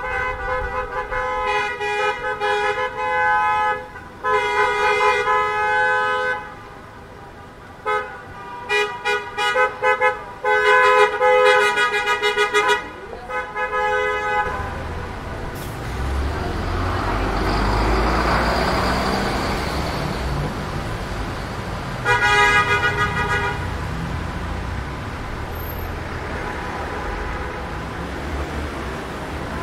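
Car horns honking repeatedly: a few long blasts, then a run of short rapid toots for about fifteen seconds. A vehicle then passes close by, its rush swelling and fading, and one more brief honk sounds a few seconds later.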